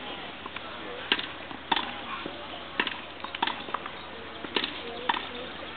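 Tennis balls struck by rackets in a grass-court practice rally: six sharp pocks, in pairs about half a second apart with a gap of a second or so between pairs.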